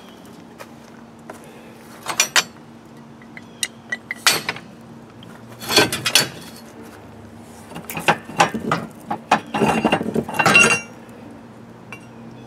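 Scrap steel pieces clanking and scraping against each other and a wire basket as they are dug through and lifted out: a few separate clanks at first, then a denser run of clatter.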